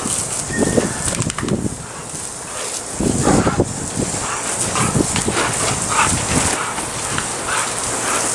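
A dog barking and yelping in short bursts as it snaps at a garden hose's spray, over the steady hiss of the water jet.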